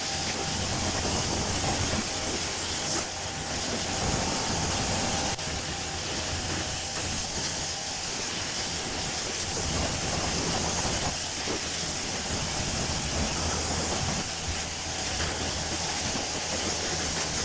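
Kranzle pressure washer spraying a steady, hissing jet of water while its motor hums underneath, rinsing snow foam off a car's paint.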